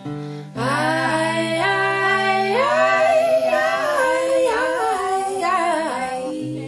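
Background music: a woman's voice singing a wordless melody that slides between notes, over a sustained low accompaniment note. It comes in about half a second in and fades out near the end.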